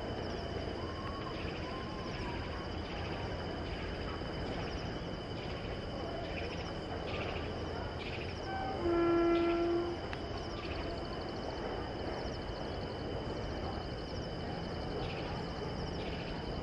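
Steady distant rail and background noise from an approaching electric locomotive, with one air-horn blast lasting about a second roughly nine seconds in. The locomotive is a WAP-7 hauling the Rajdhani.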